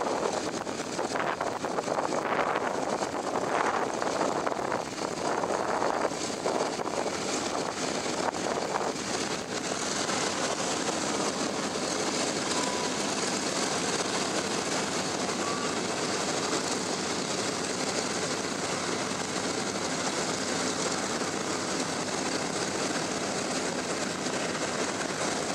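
Radial piston engines of a World War II bomber running with a steady drone, which grows even after about ten seconds. Over the first several seconds there is gusting wind noise on the microphone.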